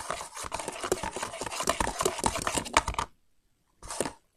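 Slime being squeezed and worked in the hands, giving rapid crackling clicks and pops. It stops suddenly about three seconds in, and one short burst follows near the end.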